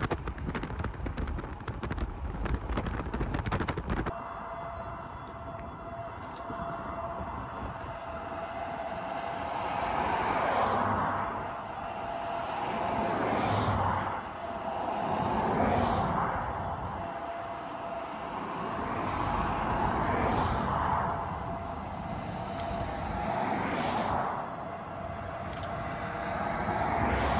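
Wind buffeting the microphone for the first four seconds, then cars passing on a highway one after another: about six passes, each swelling and fading. A faint steady tone sits underneath the traffic.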